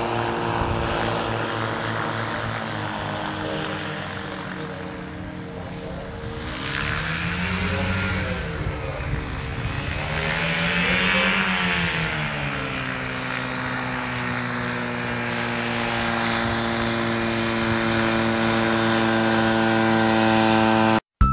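Quicksilver MX ultralight's two-stroke engine and pusher propeller running. Its pitch swells up and drops back twice, about eight and eleven seconds in, then holds steady before cutting off abruptly at the very end.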